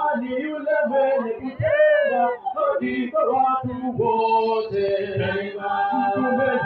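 Men's voices singing in a chant-like style, with long held notes from about four seconds in.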